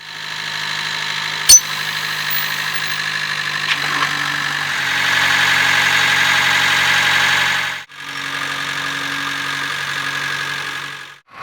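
JCB 3DX backhoe loader's diesel engine running steadily, with a single sharp click about a second and a half in. The sound gets a little louder about five seconds in and breaks off briefly about eight seconds in.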